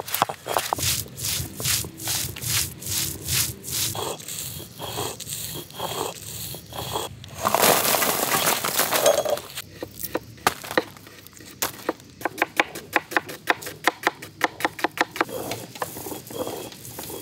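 Stone roller worked back and forth on a stone grinding slab, grinding dried red chillies and turmeric into a paste: a run of gritty scraping strokes, about three a second, then a longer, louder rush about halfway through. The strokes come quicker near the end.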